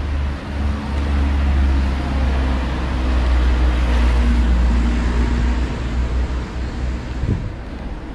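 Street traffic: a motor vehicle running close by, swelling to its loudest a few seconds in and fading away near the end, over a steady low rumble.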